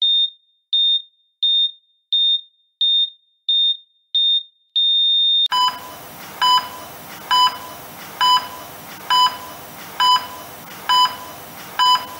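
Heart-monitor beeps: short, high electronic beeps at about one and a half a second, ending about five seconds in with a long steady tone like a flatline. After it, lower beeps about once a second over a steady hiss.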